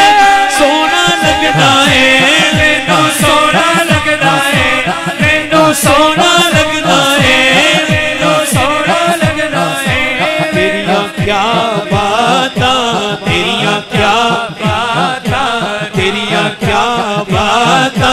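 Male voices chanting a devotional naat over a steady low beat.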